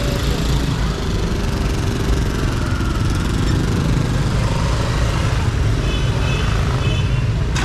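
Busy street traffic, mostly small engines running with a steady low rumble. A brief high beeping comes in about six seconds in.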